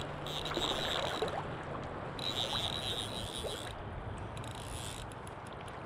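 River water flowing and lapping close to the microphone in a steady wash.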